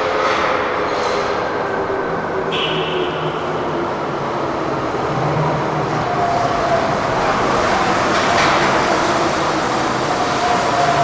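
Tateyama Tunnel trolleybus running at the station, its electric motor whining in steady tones that shift in pitch, one rising from about six seconds in. Short hisses sound in the first second, and a brief higher tone comes about two and a half seconds in.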